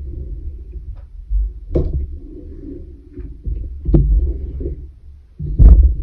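Background music with a steady bass beat, with three sharp clicks.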